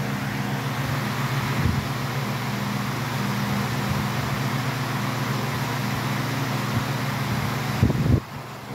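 Two high-velocity floor fans, a Lakewood HV-21T and a Lasko H20301, running together: a steady rush of air over a low motor hum. About 8 seconds in there is a short knock, and the sound drops noticeably.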